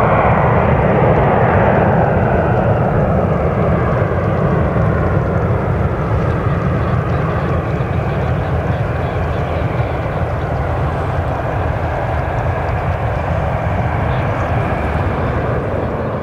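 Dassault Falcon 7X business jet climbing away after take-off, its three Pratt & Whitney Canada PW307A turbofan engines giving a steady jet noise that slowly fades as the aircraft recedes.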